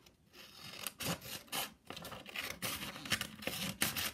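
Scissors cutting through a folded sheet of paper: a run of irregular, crisp snips and paper rustle that starts about half a second in.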